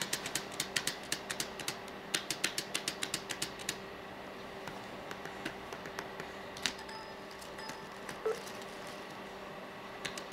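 Laptop keyboard keys being tapped by a toddler's fingers: quick, irregular runs of clicks, busiest in the first four seconds and then only now and then. A faint steady hum sits underneath.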